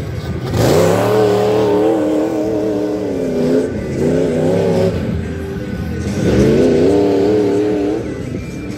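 Tuff truck's engine revving in three hard runs, starting about half a second in, near four seconds and around six seconds, its pitch climbing and wavering with each throttle burst.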